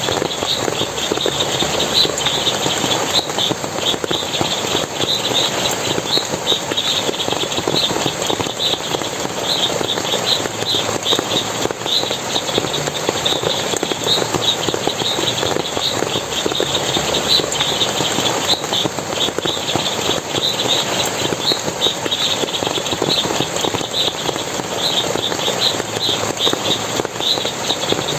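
Water splashing steadily, with high, short chirps repeating about two or three times a second over it.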